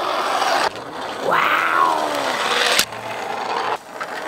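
Plastic toy ATV wheels rolling and sliding down a plastic rain-gutter slide, a steady hiss that cuts off and restarts. About a second and a half in, a short squeal rises and falls, and a sharp click follows near the three-second mark.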